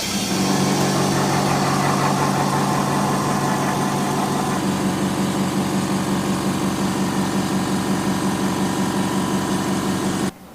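Electric air compressor of a phone-screen bubble-remover machine switching on with a click and running with a steady hum, then cutting off suddenly about ten seconds in; it pressurises the freshly laminated glass to clear the small air bubbles left under the OCA sheet.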